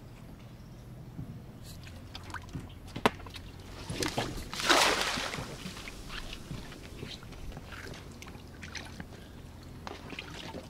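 A weighted cast net thrown from a small boat and landing on the water: a single sharp click about three seconds in, then a loud splash as the spread net and its lead weights hit the surface, followed by scattered small drips and sloshes.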